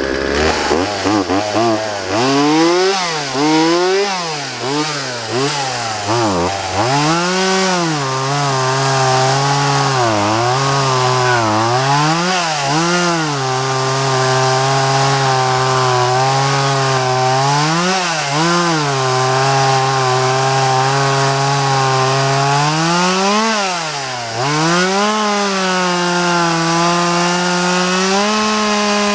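Vintage Craftsman 2.2 cubic inch two-stroke chainsaw running: blipped up and down several times in the first few seconds, then held at a steady high speed for long stretches, with short dips and blips in pitch. The steady loaded stretches fit the saw cutting wood.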